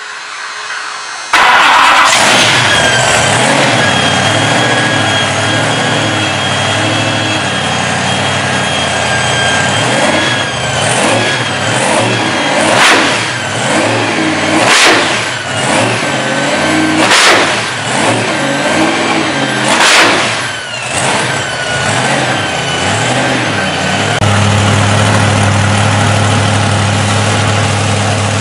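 Twin supercharged Hemi V8 engines of a hot rod firing up about a second in and running, with a steady high whine over the engine note. They are blipped sharply five times, about every two to three seconds from ten to twenty-one seconds in. Near the end they settle into a deeper, steadier idle.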